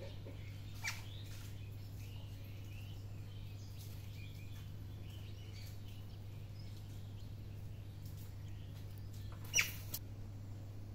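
Quiet outdoor ambience: a steady low hum under faint, scattered high chirps. Two short, sharp chirps stand out, one about a second in and a louder one near the end.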